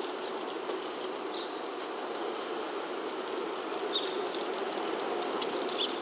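Steady low hum of a distant two-car 105-series electric train and the station yard around it, with a few short high-pitched chirps, the clearest about four seconds in and just before the end.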